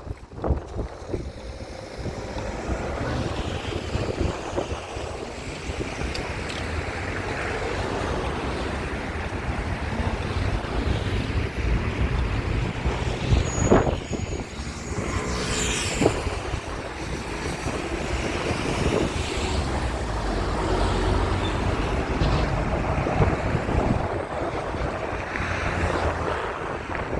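Wind buffeting the microphone, a steady low rumbling rush with a few brief knocks.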